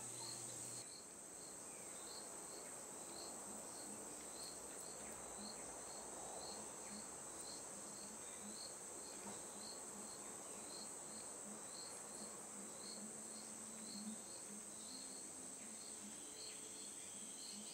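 Insect chorus: a steady high-pitched buzz with a second insect chirping regularly about twice a second, plus a few faint low notes in the background.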